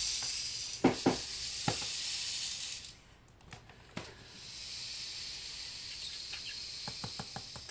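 A steady hiss lasting about three seconds, with a few light clicks in it, then a second, slightly quieter hiss of similar length after a short pause.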